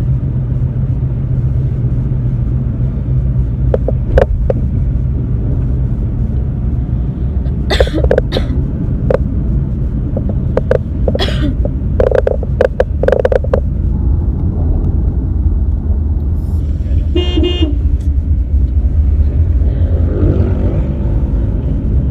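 Steady car engine and road rumble, with a person coughing in short bursts, mostly between about 8 and 13 seconds in. A car horn sounds once, for about a second, near 17 seconds.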